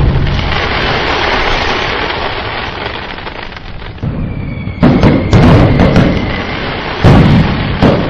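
Fireworks sound effect: a long fading rumble and crackle after a burst, then a high whistle about four seconds in, followed by sharp booming bangs, two in quick succession and another near the end, each trailing off in a rumble.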